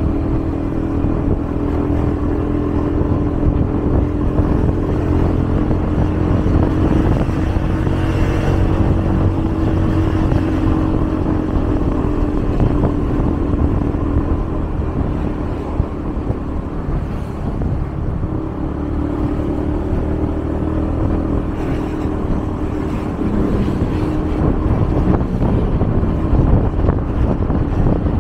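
Motor vehicle engine running without a break, its hum drifting slowly up and down in pitch over a low road rumble.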